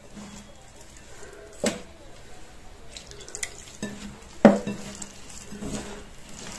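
A hand kneading a wet mixture of ground oats, besan and shredded vegetables in a ceramic bowl, bringing it together into a cutlet dough: soft squishing and rustling with a few sharp knocks against the bowl, the loudest about four and a half seconds in.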